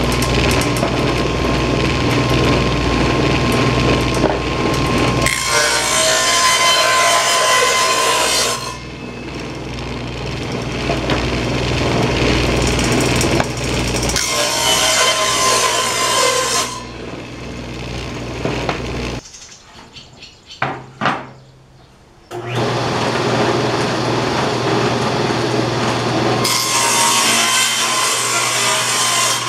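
Table saw running and cutting rabbets along the edges of wooden boards: three passes, each a louder, harsher stretch as the blade goes through the wood over the steady motor hum and whine. About two-thirds of the way through the saw stops for about three seconds, with a couple of knocks, then starts up again.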